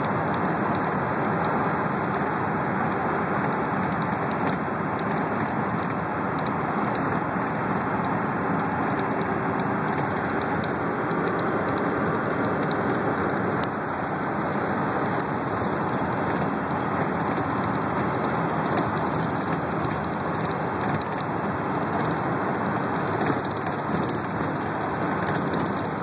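Steady engine and road noise inside a moving transit bus, with faint light rattles and ticks from the cabin.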